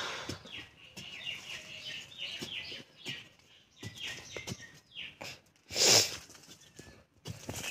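Digging in loose soil by hand with a thin digging tool: a run of short scrapes and knocks, loudest in a burst about six seconds in, with birds chirping behind.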